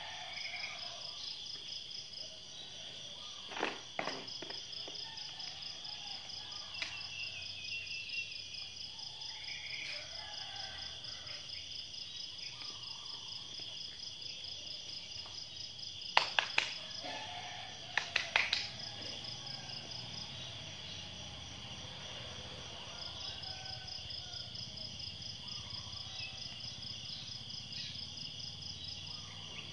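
Steady chorus of insects, with one high trill pulsing rapidly and evenly. A couple of sharp clicks come about four seconds in, and two quick clusters of louder clicks a little past halfway.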